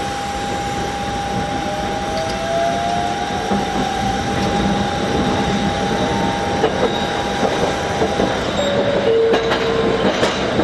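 Fukui Railway 770-series tram running on street track, heard from inside the driver's cab: a steady running noise with a high whine, which rises briefly a couple of seconds in, and a scattering of clicks in the last few seconds.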